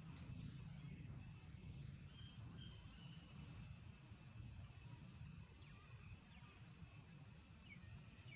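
Near silence: faint outdoor ambience with a steady low rumble and a few faint, short high chirps, the last ones falling in pitch near the end.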